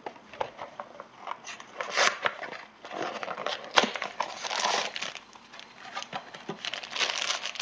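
Small cardboard blind box being handled and torn open, with its plastic wrapper crinkling. The sound is an irregular run of scratchy rustles and sharp taps, with louder crackles about 2 and 4 seconds in.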